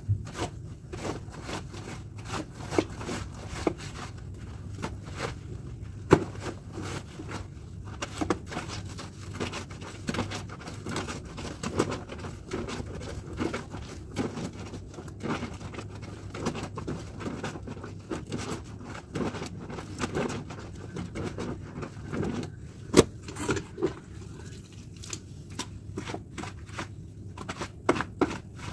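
Wet clothes being scrubbed by hand with a plastic scrubbing brush and rubbed cloth against cloth, in irregular scraping strokes about one or two a second, with a couple of sharper knocks.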